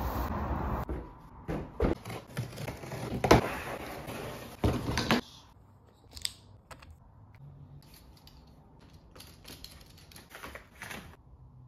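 Hard plastic playpen panels knocking and clicking against each other and scraping on cardboard as they are pulled from their box and fitted together. The loudest knocks are in the first five seconds, then fainter, scattered clicks.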